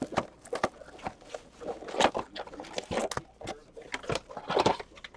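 A cardboard blaster box of 2017-18 O-Pee-Chee Platinum hockey cards being opened by hand and its foil packs pulled out and set down on a table: irregular crinkling, scraping and small taps.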